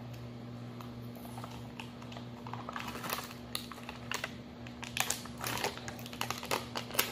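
Chobani Flip plastic yogurt cup being handled and opened: a run of crinkles and sharp clicks that grows busier about halfway through, with the loudest snaps near the end, over a faint steady hum.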